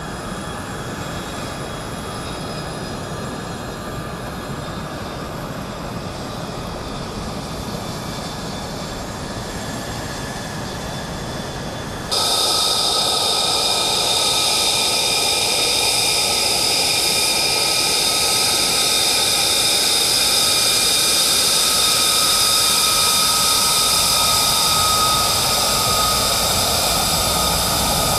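F-35 fighter's Pratt & Whitney F135 turbofan engine running at taxi power: a steady rush of exhaust with high-pitched whines over it. About twelve seconds in the sound jumps abruptly louder and the whine grows stronger.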